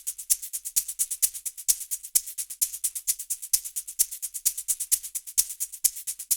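Percussion rhythm loop of fast, bright, high-pitched strokes, about eight to ten a second with regularly recurring louder accents and no low drum.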